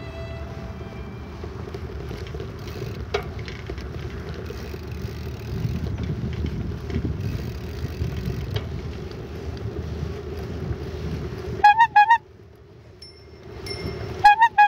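Wind buffeting the microphone of a camera on a moving bicycle, with tyre noise from the paved path, as a low steady rumble. Near the end the rumble drops away and two short bursts of quickly repeated ringing notes sound, one about twelve seconds in and one just before the end.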